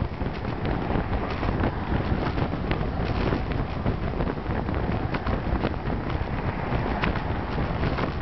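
Wind buffeting the microphone of a camera riding along on a moving road bike: a steady, dense rumble full of small crackles.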